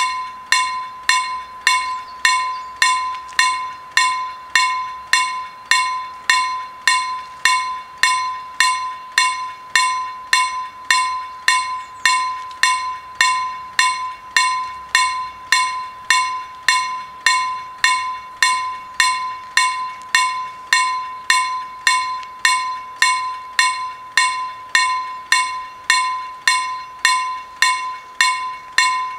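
Level-crossing warning bell striking steadily, a little under two strokes a second, each stroke ringing out and fading before the next: the crossing is active, warning that a train is approaching.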